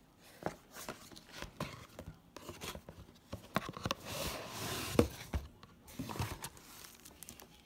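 Cardboard packaging being handled: irregular rustles, scrapes and taps as a printed sleeve and box are moved, with a longer scraping slide around four seconds in and a sharp knock about five seconds in.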